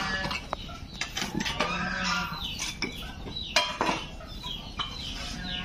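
Poultry calling in the background, while chunks of broken concrete slab knock and clatter against each other as they are lifted and moved by hand. The knocks come irregularly, a handful over a few seconds.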